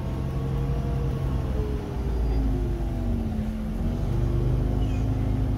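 Iveco Crossway LE bus heard from inside the passenger cabin: the diesel engine and drivetrain running under way, with a whine that falls in pitch over about three seconds and then climbs again.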